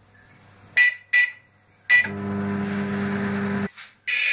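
Microwave oven finishing its cycle: three short beeps, then the oven runs with a steady low hum for under two seconds and stops. A longer end-of-cycle beep sounds near the end.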